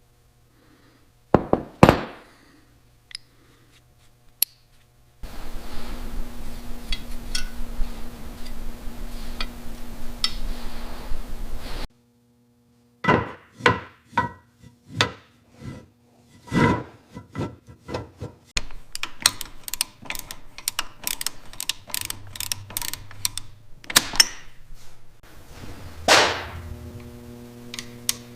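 Workshop tool sounds: sharp knocks, taps and quick runs of ticks, with a steady machine hum under some stretches. The sounds change abruptly several times.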